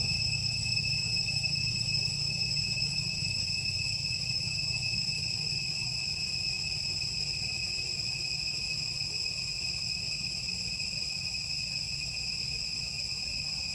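Steady, high-pitched drone of insects, unbroken and unchanging, over a low rumble.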